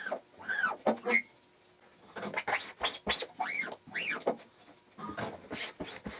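Tape pulled off a roll in a series of short, squeaky rips, each rising and falling in pitch, as registration marks on a screen-printing screen are taped off. There is a brief pause between rips about a second in.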